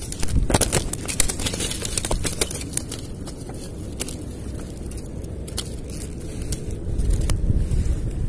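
Handling noise from a hand-held camera being moved about: irregular clicks and scrapes, thickest in the first couple of seconds, over a low rumble.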